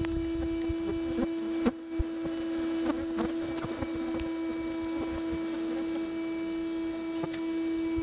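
Bee vacuum's motor running with a steady, even-pitched hum as its hose sucks honeybees off the comb; the level dips briefly about two seconds in.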